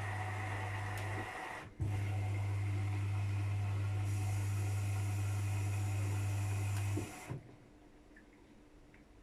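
AEG Lavamat washing machine in its service test mode, with a component giving a steady low electrical hum. The hum drops out briefly and restarts with a click, a hissing rush like water flow joins about four seconds in, and both stop together about seven seconds in.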